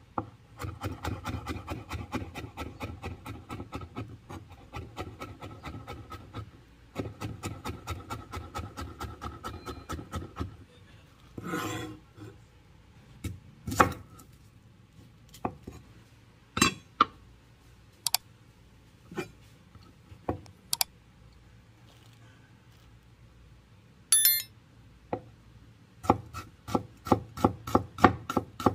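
Steel cleaver chopping on a wooden board: two long runs of quick, even strokes mincing garlic, then a scrape of the blade across the board. Slower single cuts through a red onion follow, with another scrape, and a fast run of chopping comes near the end.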